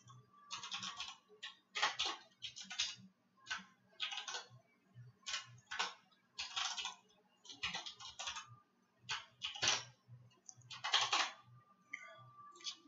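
Typing on a computer keyboard: irregular clusters of key clicks with short pauses between them.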